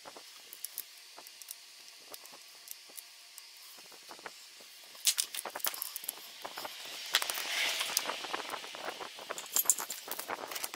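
Light metal clicks of hand tools and bolts on a Hyosung GD250N engine crankcase being taken apart. About five seconds in they become a dense run of clinks and rattles, with a brief rustling noise in the middle.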